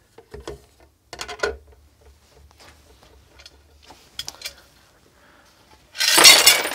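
Light clicks and knocks as a small circuit board is lifted out of an amplifier housing and handled. Near the end, the amplifier's heavy aluminium cover gives a loud metal clatter lasting well under a second as it is moved.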